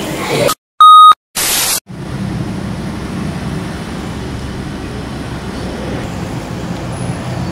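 A short, very loud electronic beep about a second in, followed by a brief burst of static-like hiss. After that comes steady street noise, a low traffic rumble with hiss.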